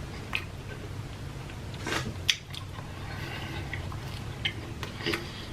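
A person chewing and biting food close to the microphone: scattered wet mouth clicks and smacks, a sharper one about two seconds in, over a steady low hum.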